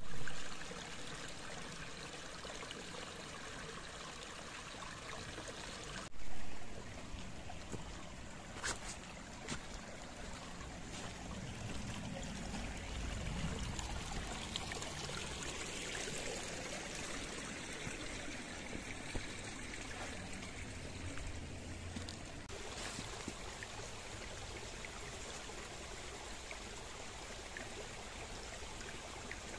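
Mountain stream flowing and trickling over rocks, a steady rush of water. Two short louder bumps stand out, one near the start and one about six seconds in.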